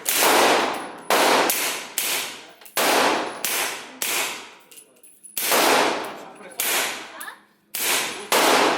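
A string of about ten gunshots fired at a steady pace of roughly one a second, each sharp crack dying away in a reverberant tail.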